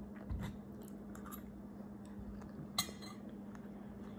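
Metal fork knocking and clinking against a ceramic bowl: a soft knock about half a second in and one sharp clink just before three seconds, over a steady low hum.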